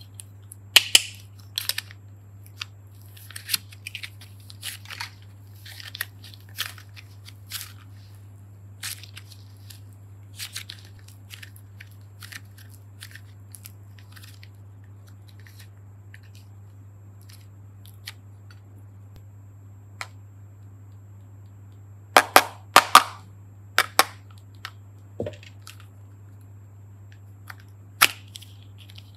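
Clear plastic bone-shaped clay mold being handled and pried open, giving scattered sharp clicks and crackles as modelling clay is peeled out of it, with a loud cluster of snaps a little past the middle and another near the end. A steady low hum runs underneath.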